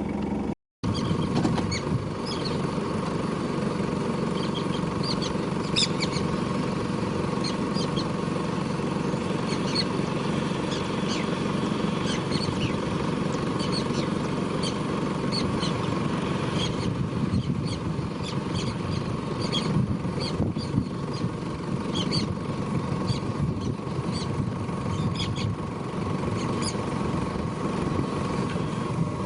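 Vehicle engine idling steadily, with birds chirping over it.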